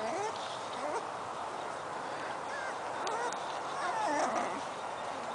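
Boxer puppies giving short, scattered whimpering squeaks while they play.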